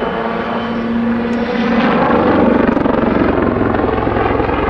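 Army Air Corps Westland Lynx helicopter flying a display, its rotor blades chopping fast with engine whine, growing a little louder about two seconds in as it pulls up over the top into a backflip.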